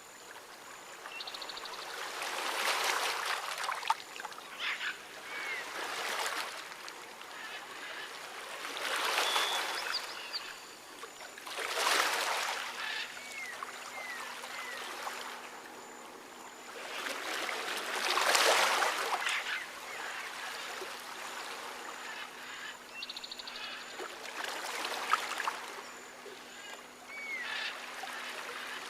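Rainforest ambience: rushing water that rises and falls in swells every few seconds, with short whistled bird calls and a couple of brief rapid trills.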